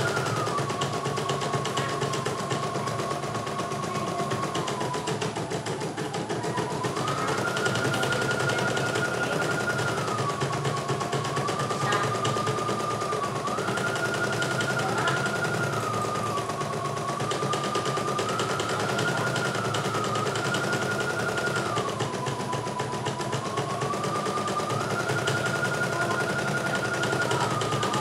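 CNY E900 portable embroidery machine stitching a design: a fast, steady needle clatter with a motor whine that steps between a lower and a higher pitch several times.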